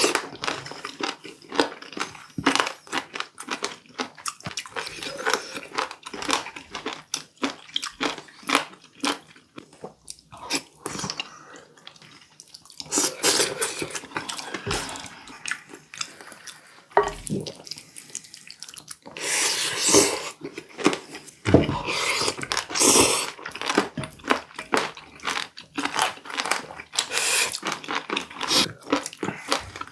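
Close-miked chewing and crunching of warty sea squirt (omandungi), many quick irregular crunches, with a few longer, louder noisy bursts in between.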